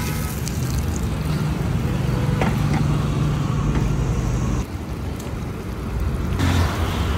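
A steady low rumble, like street traffic or a motor running, with a faint click or two from the spatula against the pan. The rumble drops away sharply about four and a half seconds in and returns near the end.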